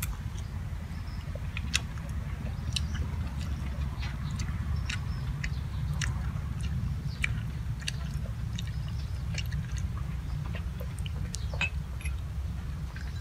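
Chewing and small mouth sounds from a person eating, with light clicks and scrapes of a metal spoon in small ceramic bowls of steamed egg. A steady low hum runs underneath.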